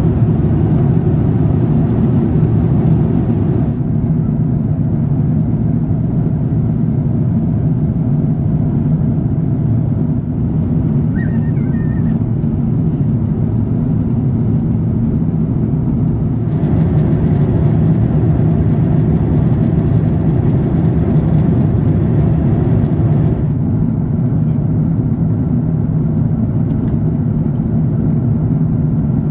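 Steady airliner cabin noise inside a Lufthansa Airbus A340-300 in flight: an even low rumble of engines and rushing air. The hiss above it thins and returns abruptly a few times.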